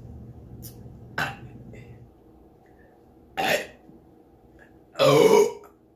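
A woman burping: a small burp just after a second in, a short one about three and a half seconds in, and the loudest, longest belch about five seconds in.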